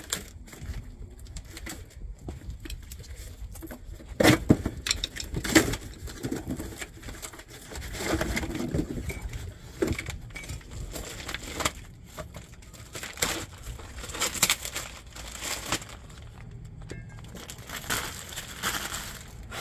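Scattered knocks, clinks and scraping of hand tools and metal brake parts while a rear brake assembly is taken apart, with the sharpest knocks about four and five and a half seconds in and a stretch of rustling scrape around eight seconds in.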